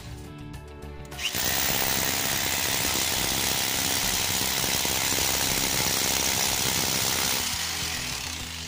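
Power drill with a masonry bit boring into a concrete wall. It starts about a second in, runs steadily, and winds down near the end as the hole is finished.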